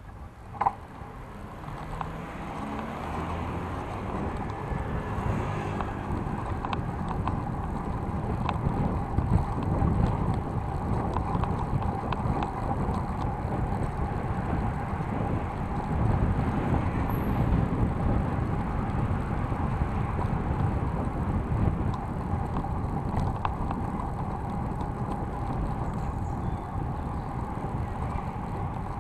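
City bike riding along a paved cycle path: tyre rumble and wind buffeting the handlebar-mounted microphone, building over the first few seconds as the bike pulls away and then holding steady. A sharp click just under a second in.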